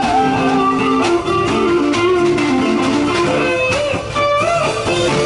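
A live band plays, led by an electric guitar carrying a wavering melody over steady accompaniment.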